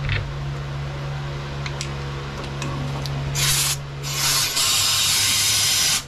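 Compressed-air blow gun hissing into a pole saw's drive shaft tube to blow it out: a short burst, then a steady blast of about two seconds that cuts off suddenly.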